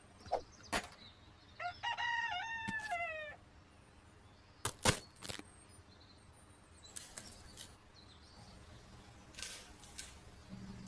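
A rooster crows once, a call of just under two seconds about two seconds in, among a few scattered short sharp clicks or taps.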